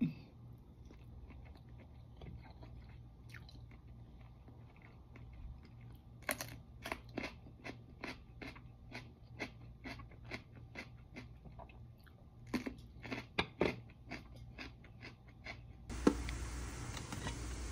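A person eating close to the microphone: quiet chewing, then a run of short, irregular crisp crunches and mouth clicks through the middle. Near the end, a single sharp clank, then a steady hiss.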